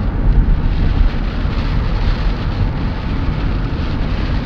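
Road and wind noise heard from inside a moving car: a steady, loud low rumble.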